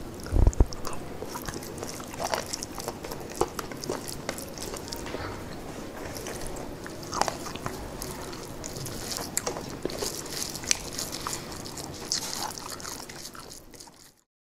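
A man eating chicken curry and rice with his fingers: close chewing and biting, with small wet clicks of rice and curry being mixed on the plate and a low thump about half a second in. The sound fades out near the end.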